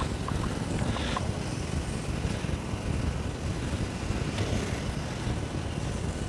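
Steady low rumble of outdoor background noise, with a few faint short tones around the first second.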